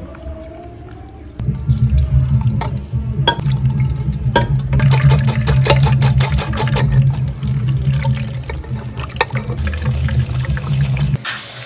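Running water with scattered clinks and knocks, starting suddenly about a second and a half in and cutting off shortly before the end.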